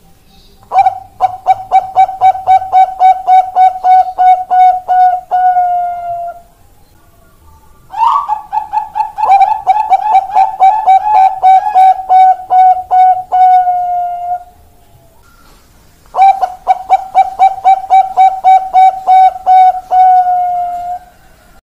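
Zebra dove of the Thai 'Bangkok' strain (perkutut bangkok) cooing in three phrases. Each phrase is a quick run of short coos, about three to four a second, ending in a longer drawn-out coo.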